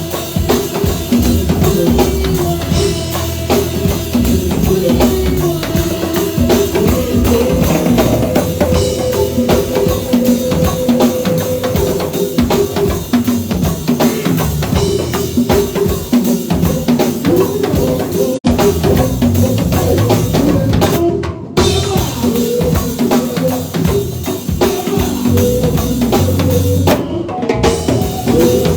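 Live band playing an instrumental passage, driven by a drum kit with bass drum and snare up front and held instrument notes over the beat. The sound drops out for an instant about 18 seconds in.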